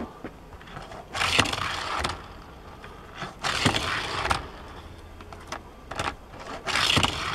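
Die-cast Hot Wheels Custom '66 GTO Wagon rolling on its wheels along orange plastic Hot Wheels track, pushed by hand. It makes three rushing runs of about a second each.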